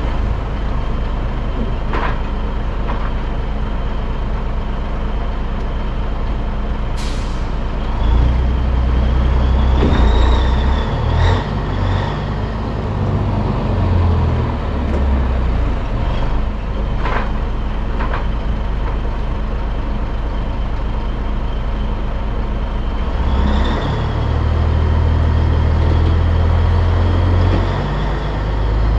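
The Caterpillar diesel engine of a 1984 Peterbilt 362 cabover semi truck runs steadily while pulling a loaded lowboy trailer. It swells louder twice, about a third of the way in and again near the end. Scattered clunks from the rig and a brief hiss about seven seconds in are also heard.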